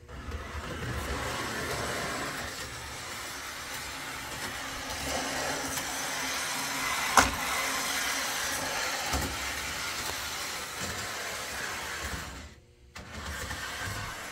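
Lionel O-27 trolley car running along the layout track, its motor and wheels going with the car's onboard sound effects, which the owner means to reprogram. A sharp click about seven seconds in, and a brief drop-out near the end.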